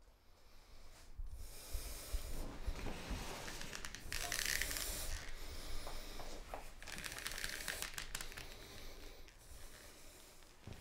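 Clothing rustling and a leather belt sliding as it is handled, in several rough swishes of about a second each, over a low rumble.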